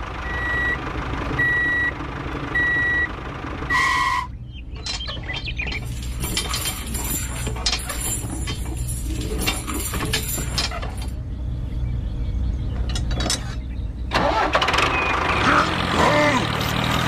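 A steady low engine rumble, with four evenly spaced beeps like a reversing alarm in the first four seconds, then several seconds of crackling, rattling noise.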